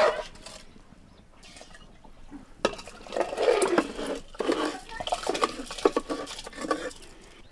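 Rice tipped out of an aluminium pot into a pot of water, a metal spoon scraping and clinking against the pot while the rice slides and splashes in. The scraping starts a couple of seconds in and runs for about four seconds.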